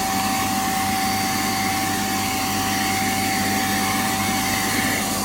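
Porodo handheld carpet and upholstery spot cleaner running steadily, a constant motor noise with a steady whine.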